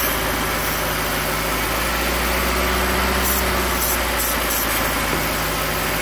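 Hyundai Accent four-cylinder engine idling steadily, with short hissing spurts of aerosol brake cleaner sprayed at the intake manifold gasket, four of them in the second half. This is a vacuum-leak test: the engine note changing with the spray points to a split gasket that lets extra air into cylinder 2, making it run lean and misfire.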